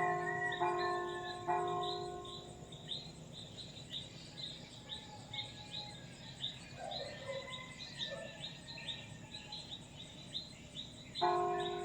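Church bell struck three times in quick succession, ringing and slowly fading, then struck twice again near the end. Small birds chirp in short, high, repeated calls throughout.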